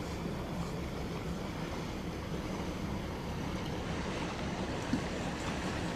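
Steady outdoor wind rumble on the microphone with a faint low hum, and one small knock about five seconds in.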